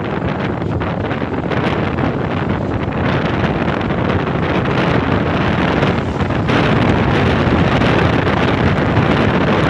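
Wind rushing over the microphone of a moving motorcycle, with engine and road noise mixed in beneath it, growing louder about six and a half seconds in.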